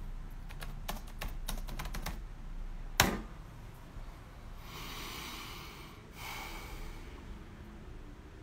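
Handling noise on a smartphone: a quick run of light taps on the phone, then one louder knock about three seconds in, followed by two soft rushing noises.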